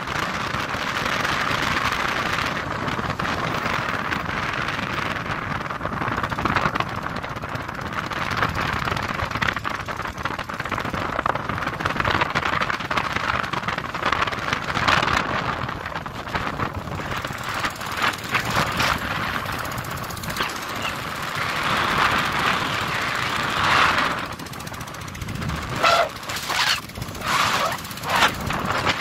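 Royal Enfield Bullet single-cylinder motorcycle running under way, its rapid thumping mixed with steady wind rush on the microphone. Several short, louder bursts of wind buffeting come near the end.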